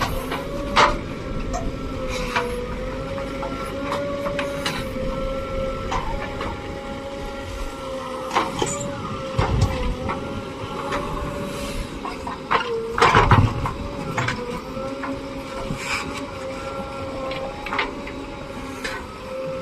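JCB backhoe loader working: a steady machine whine under intermittent knocks and clunks, the loudest clunk about 13 seconds in.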